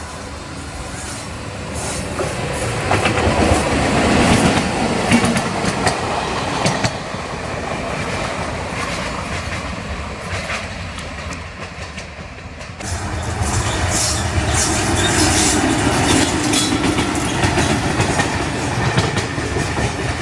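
A train passing close by, its wheels clattering over the rail joints with a steady rumble. It grows louder about two seconds in, dips briefly about two-thirds of the way through, then comes up loud again.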